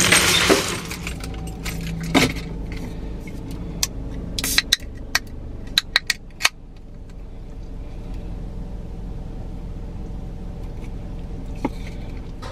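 Sharp clicks and taps of fingernails and the tab on an aluminium drink can as it is handled and opened, over a steady low hum inside a car.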